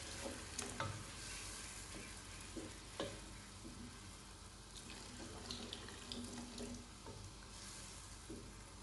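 Water poured from a kettle into a pot of soup, then a wooden spoon stirring the broth, with a few light knocks against the pot.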